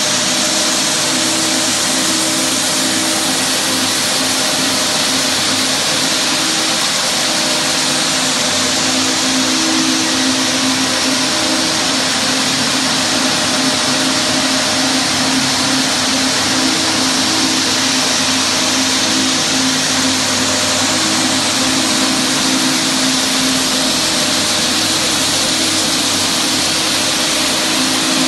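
Roll Woody parquet floor sander running steadily with its dust extraction, its grit-60 ceramic sanding discs grinding UV lacquer off the parquet: a constant motor hum under a loud, even hiss.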